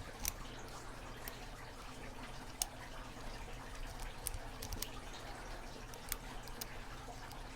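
Faint, irregular small clicks of a snake rake and tension wrench working the pins inside an Abus 8345 padlock.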